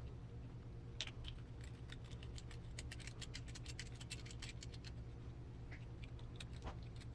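Quick light clicks and taps of small plastic and metal parts being handled while an RC car's gearbox is put together by hand. They come thick and fast for a few seconds starting about a second in, then thin out to a few scattered clicks, over a steady low hum.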